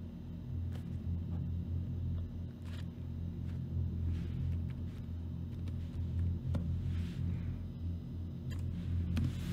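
A low, steady rumbling drone, with a few faint short scratching and tapping sounds over it.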